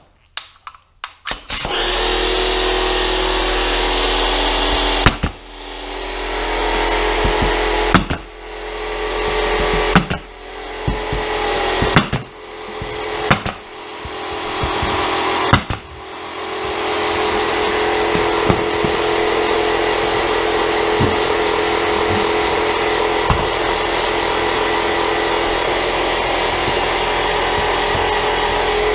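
Air compressor motor kicks on about a second and a half in and runs steadily with a low hum. Over its noise, a pneumatic brad nailer fires about seven sharp shots, nailing trim along the floor.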